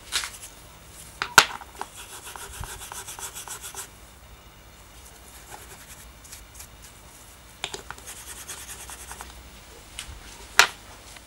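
A rusty old petrol lighter being handled in gloved hands, its metal rubbing and scraping, with two runs of fast, fine rasping strokes. A few sharp clicks stand out, the loudest about a second and a half in and another near the end.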